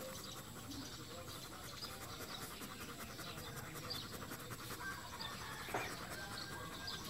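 German Shepherd dog panting quickly and evenly with its mouth open, close to the microphone. A single short, sharp, louder sound comes about six seconds in.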